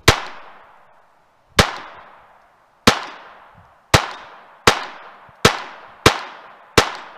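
Glock 44 .22 LR pistol firing eight single shots, each a sharp crack with a short trailing echo. The shots come slowly at first, then speed up to a little under one a second.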